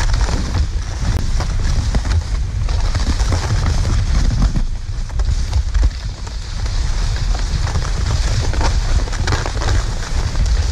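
Wind buffeting the camera's microphone as a continuous rumble, over the hiss and scraping of skis sliding up a snowy drag-lift track.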